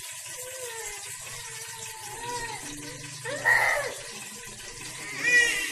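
Sliced onions sizzling as they fry in hot oil in an aluminium pot, a steady hiss. Two short voice-like calls stand out over it, one about halfway and one near the end.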